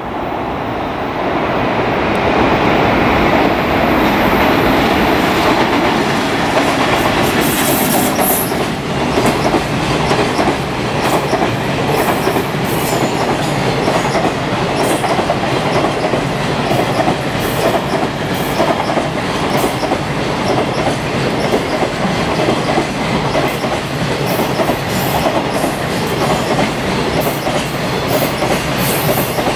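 Long freight train passing close by, a loud steady rumble that swells over the first few seconds. From several seconds in, its wheels clack over the rail joints in a rapid, irregular clatter.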